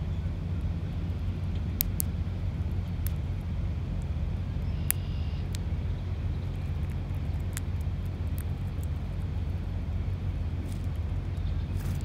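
Steady low rumble, with scattered sharp ticks of a female northern cardinal pecking at bread and seed on a stone slab close by.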